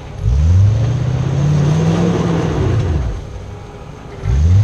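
Off-road 4x4 engine revving hard: a long rev that climbs and then drops away after about three seconds, and a second rev starting near the end.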